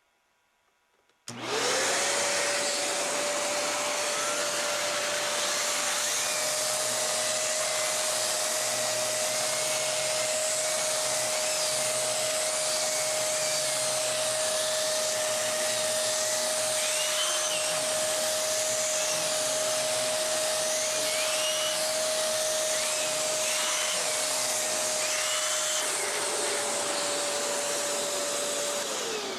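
Kenmore Elite 31150 upright vacuum cleaner switched on, running with the turbo tool on the hose, a steady high whine with wavering airy whistles as the tool moves over upholstery. It is switched off near the end and the motor winds down with a falling pitch.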